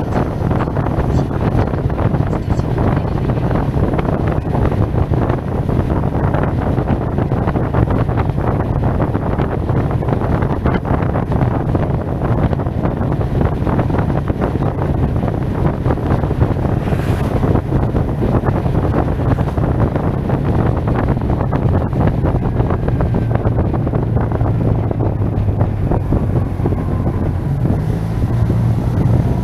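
Heavy wind buffeting on a helmet-mounted microphone while riding a SYM Maxsym TL 508 maxi-scooter at speed, with the scooter's parallel-twin engine running steadily underneath. Near the end the wind eases and the engine note comes through more clearly.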